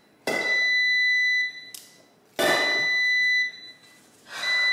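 Electronic alarm beeping: a steady high-pitched tone sounds three times, each beep about a second long and about two seconds apart, with a short hiss as each one starts.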